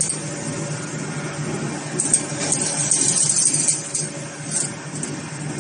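Chain-link wire mesh being handled on the steel frame of a fence making machine, giving scattered metallic rattling and scraping, busiest in the middle, over a steady low hum.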